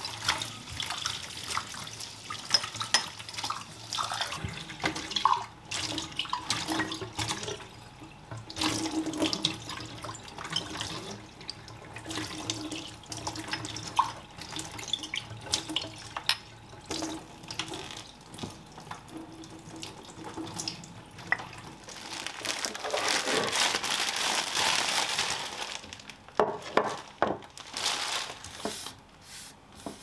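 Kitchen tap running into a stainless steel sink as small glass jars are rinsed, with many short clinks and knocks of glass against glass and the sink. The water runs steadily and loudest for a few seconds about three-quarters of the way through.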